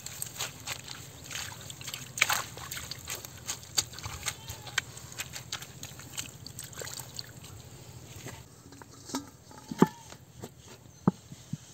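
Hands slapping and squelching wet mud, with small splashes of water, in a dense run of short wet smacks. Near the end a couple of sharper knocks are heard as a metal bowl is pressed down into the mud.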